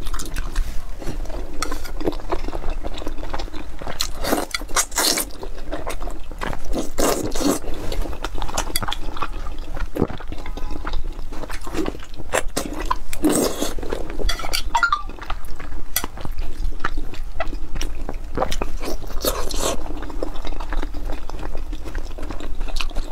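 Close-miked wet chewing and mouth smacking of gelatinous braised pork with glass noodles in broth, a run of irregular small clicks and squelches.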